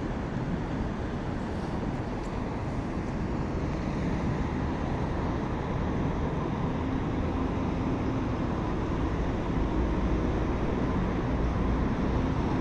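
Steady road traffic noise, heaviest in the low end, slowly growing a little louder.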